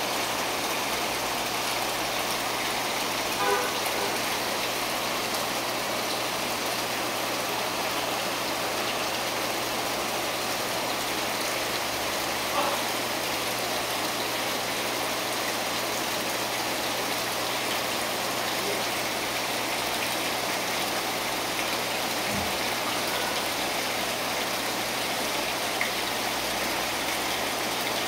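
Steady rush of running water from an aquarium's water circulation, even and unbroken, over a low steady hum.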